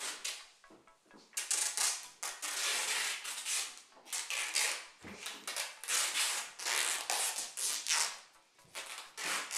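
Adhesive tape being pulled off the roll in a string of short rasping rips, over and over, as strips are torn off and stuck down.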